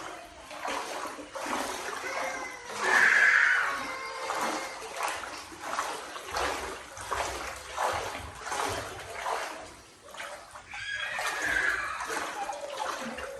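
Floodwater sloshing and splashing in a regular rhythm, about two a second, as someone wades through it on foot indoors. A brief high-pitched cry or call rises above it about three seconds in and again near the end.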